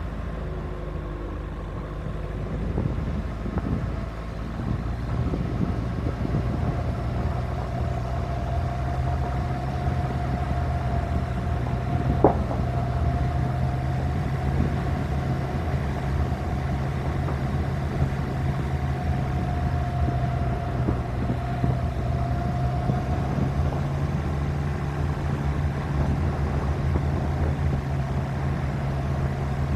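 Suzuki Grand Vitara SUV driving on a gravel road: the engine runs at a steady pace and the tyres rumble on the gravel, picked up by a camera on the roof. There is one sharp knock about twelve seconds in.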